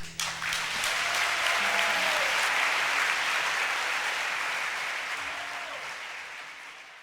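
A small group clapping their hands in applause, fading out gradually toward the end.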